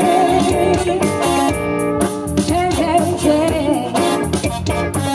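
Live band music: a singer holding wavering notes over electric guitar, with a blues-rock feel.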